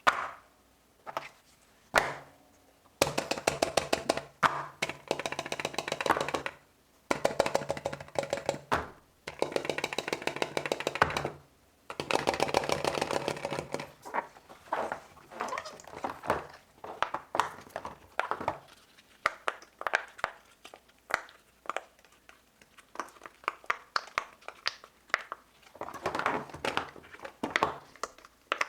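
Silicone pop-it fidget toys being pressed and popped, in runs of rapid clicks and pops a few seconds long with short pauses between them.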